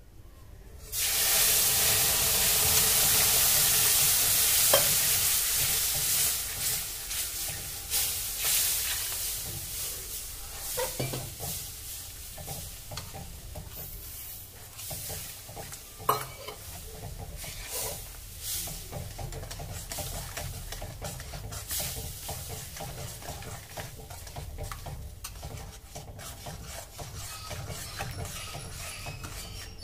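Liquid hits the hot roasted finger millet flour in a steel kadhai with a sudden loud sizzle about a second in, which fades over several seconds. After that, a metal spoon stirs and scrapes the bubbling mixture against the pan, with a few sharp clinks.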